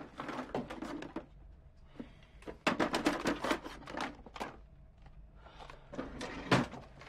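Hands rummaging through a wooden desk drawer: small objects clattering and shuffling in short bursts, with one sharper knock near the end.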